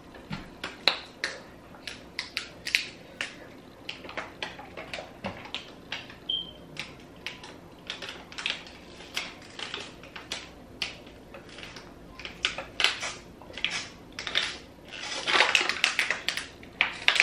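Thin plastic water bottles crinkling and clicking as they are squeezed and drunk from, in irregular sharp crackles that are densest near the end, with one brief high squeak partway through.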